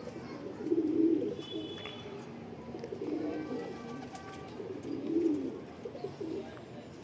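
Domestic pigeons cooing: several low coos about two seconds apart.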